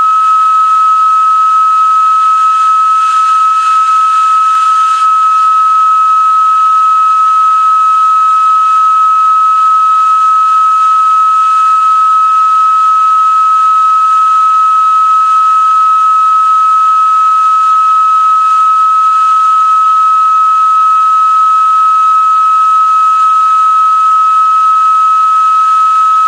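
Organ pipe blown with helium, sounding one loud steady whistle-like note with a fainter higher overtone over a light breathy hiss of the jet.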